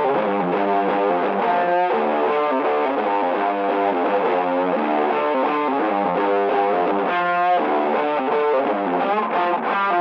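Background music: a guitar with distortion and effects playing a melody of short notes that step up and down several times a second, with little bass underneath.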